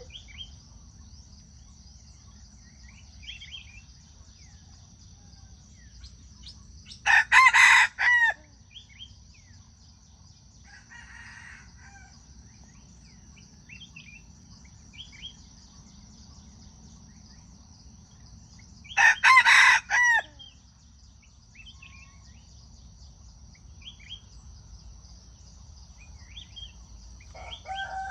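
Junglefowl rooster crowing twice, about twelve seconds apart, each crow short and broken into three parts, with a fainter call between them.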